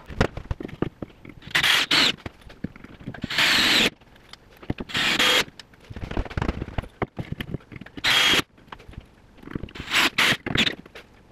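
Cordless drill driving screws into wooden furring strips in several short runs of about half a second each, with clicks and knocks of handling in between.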